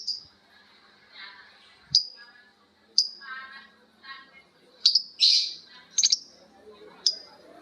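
Pet lovebirds calling back and forth: about six sharp, high chirps roughly a second apart, the loudest near the middle, with softer rattling chatter in between.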